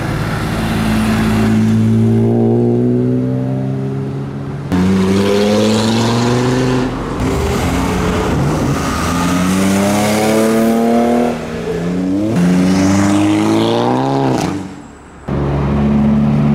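Several cars accelerating away one after another, each engine note rising as it pulls away. The sound switches abruptly from one car to the next several times.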